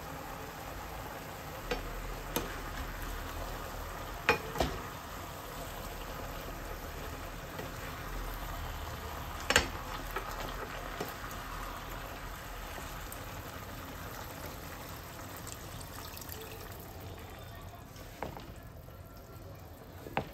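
Chicken and cabbage sizzling in a frying pan while a thick red sauce is stirred through with wooden spatulas, with a few sharp knocks of the wooden spatulas against the pan, the loudest about halfway through. The sizzle eases near the end.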